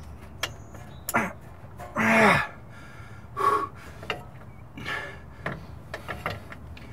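A man grunting and gasping several times in short straining bursts, the loudest about two seconds in, as he heaves on a wrench against a seized 19 mm suspension-arm bolt that won't break loose. A few sharp clicks fall in between.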